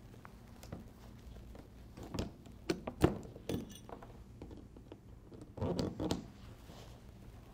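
Excess bolts of Flexco bolt solid plate conveyor-belt fasteners snapping off under two steel bolt breakers worked in short, quick strokes. The sound is a few sharp metallic clicks and clinks, the sharpest about three seconds in and a quick cluster near the six-second mark.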